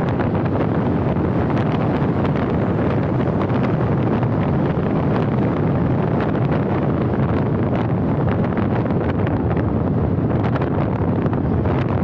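Steady wind rumble buffeting the microphone over the road noise of a moving car.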